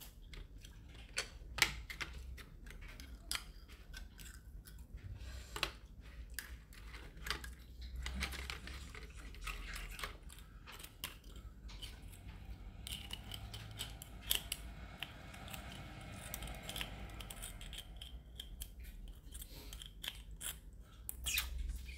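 Irregular light clicks and taps of snail shells and a small metal fork being handled over an aluminium foil tray as cooked escargots are picked out of their shells.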